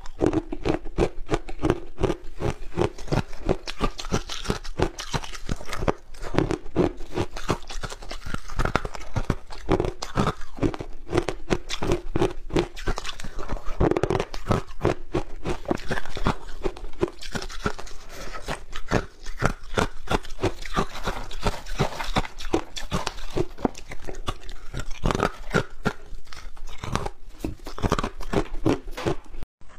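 Hard ice chunks being bitten and chewed right at a clip-on microphone: dense, continuous crunching and crackling as the ice breaks between the teeth, with a brief break near the end.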